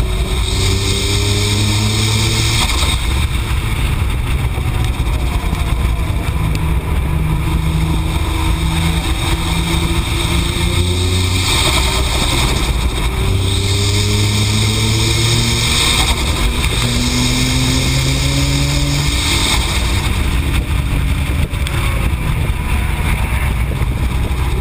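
Nissan GT-R's twin-turbo V6, a tuned AAM-800+ build on its low boost setting, pulling hard at track speed: its note climbs in pitch over a couple of seconds, drops back at each shift and climbs again, several times over. Heavy wind and road noise run under it throughout.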